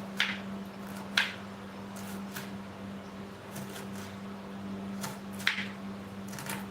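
Sharp clicks and knocks, three of them loud (right at the start, about a second in, and near the end), with a few fainter ticks, over a steady low hum.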